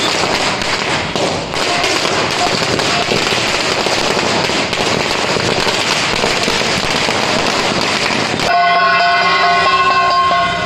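Ground fireworks on the road, hissing and crackling steadily as they throw out sparks. About eight seconds in, this cuts off suddenly and is replaced by music with a steady, horn-like wind instrument.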